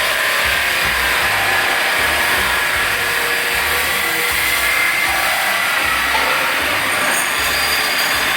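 A power tool running steadily at a loud, even level with a high whine, used on the exhaust pipe and catalytic converter flange during the repair.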